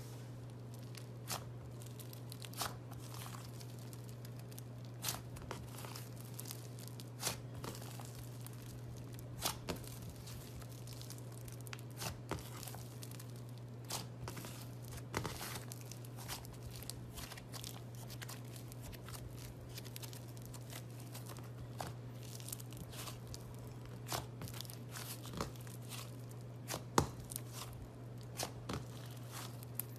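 Thick green slime being pressed, stretched and pulled apart by fingers, giving irregular small pops and crackles, roughly one or two a second. A steady low hum runs underneath.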